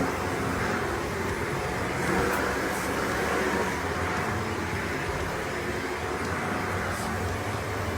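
Vacuum cleaner running steadily: a continuous motor and airflow rush with a low hum underneath.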